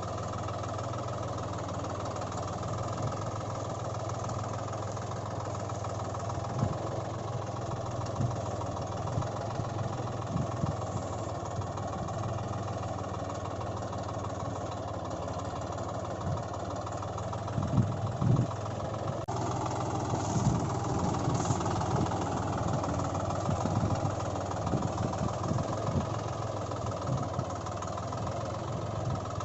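Engine running steadily at idle. Its sound changes abruptly about two-thirds of the way in, and a few low thumps come just before the change.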